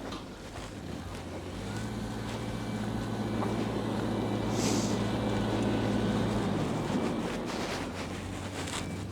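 A motor vehicle driving past, its engine hum growing louder over a few seconds and then fading away.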